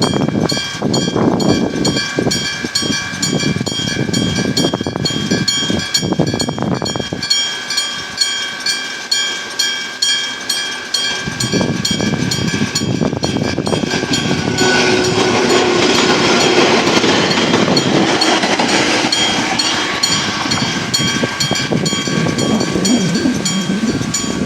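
Electromechanical bell of a Japanese level crossing (a denshō, hammer striking a bell) ringing steadily with rapid, evenly spaced strikes. A train runs past on the rails with rumble and clatter, loudest in the second half.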